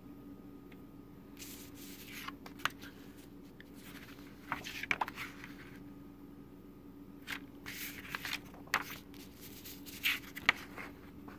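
Paper booklet being handled and opened: short bursts of page rustling and scraping in four clusters, over a faint steady hum.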